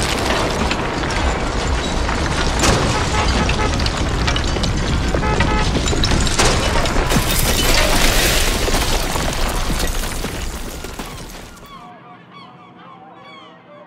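Simulated earthquake shaking: a loud, steady rumble with crashing, clattering masonry and a few sharper impacts. It fades out over the last few seconds, leaving short honking bird calls near the end.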